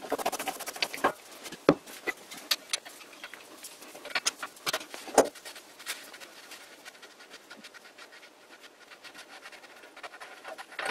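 Scattered light metallic clicks and knocks as the gear and nut are worked off the end of an old lathe's spindle. They are busiest in the first half, with the sharpest knock about five seconds in, and only faint handling sounds after that.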